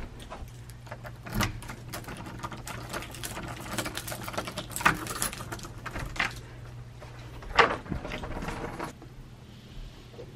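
A bunch of keys jingling and clicking against a door's lock and lever handle as the door is unlocked, a run of sharp clicks and rattles with the loudest about five and seven and a half seconds in. A steady low hum runs underneath and stops near the end.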